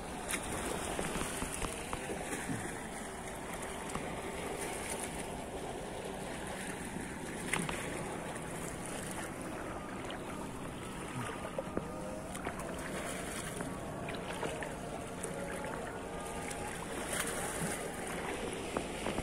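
Shallow seawater sloshing as people wade through it, with a few sharper splashes.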